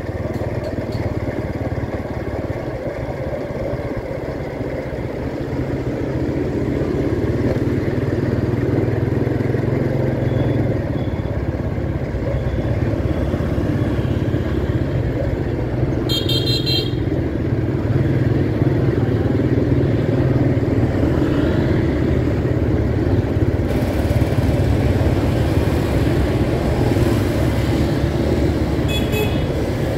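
Steady street traffic noise dominated by motorbike engines and low rumble, with a short burst of rapid high-pitched beeping about sixteen seconds in and again near the end.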